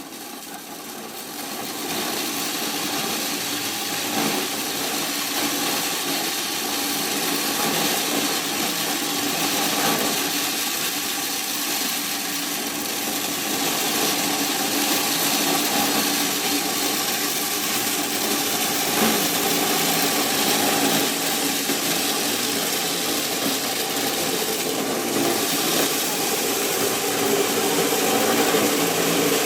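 Corn thresher running steadily, a continuous machine drone with a hiss over it, building up over the first couple of seconds.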